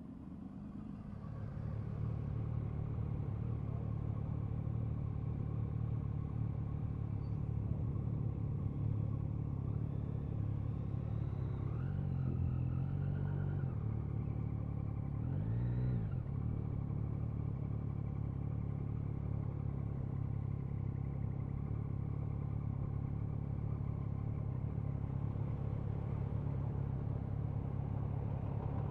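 Motorcycle engine heard from an on-board camera, getting louder over the first couple of seconds as the bike pulls away, then running steadily; the revs rise and fall twice about halfway through.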